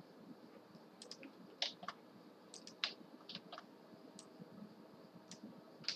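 Faint, scattered clicks of a computer mouse and keyboard keys as a spreadsheet is edited, irregular and about a dozen in all.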